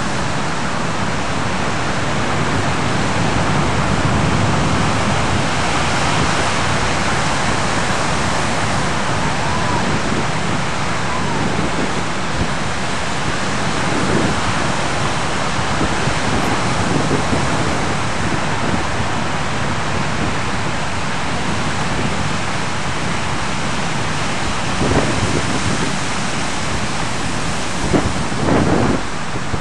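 Pacific surf washing onto a sandy beach, a steady rush of noise without a break. A few short gusts of wind hit the microphone near the end.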